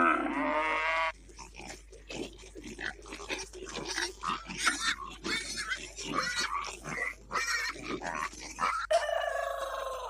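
A cow's moo trails off in the first second, then a group of pigs grunting and squealing in quick, short bursts, with a longer, steadier call in the last second.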